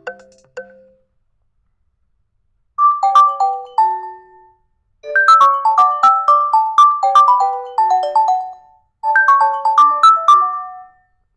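Nokia 2.3 ringtone: a quick melody of short struck notes, played as three phrases with brief gaps, starting about three seconds in. Before it, the end of the previous ringtone dies away, then a short silence.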